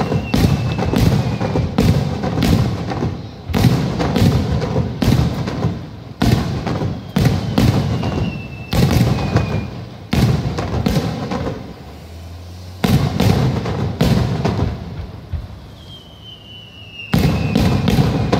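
Aerial firework shells bursting overhead in rapid succession: a string of sharp bangs about a second apart, each trailing off in a rumbling echo, with a short lull past the middle. A thin falling whistle is heard three times among the bangs.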